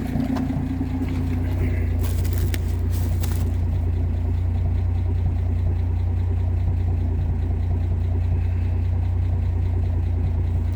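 1958 AMC Rambler Super's engine running steadily at a raised idle, now free of its earlier misfire since a new distributor cap went on, according to the owner. A few light clicks sound about two to three seconds in.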